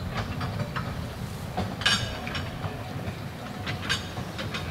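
Narrow-gauge Baguley 0-4-0T steam locomotive and its wagons running along the track: a steady low rumble with irregular sharp clicks from the wheels and running gear. The loudest click comes about two seconds in.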